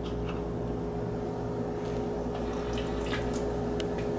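A freshly opened can of carbonated soda fizzing faintly, with a few small ticks as it is sipped, over a steady low hum.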